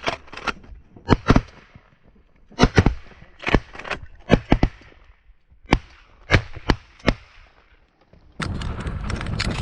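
Volley of shotgun fire from several hunters: about a dozen sharp shots, several in quick pairs, spread over seven seconds. A steady rough noise takes over near the end.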